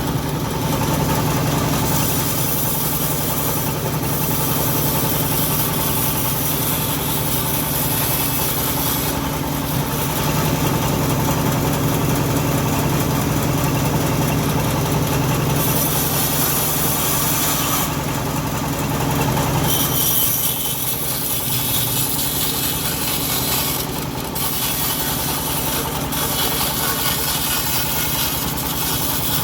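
Engine of a homemade bandsaw mill running steadily while it saws teak, with a hiss from the cutting over the engine hum. The low engine note drops away about twenty seconds in.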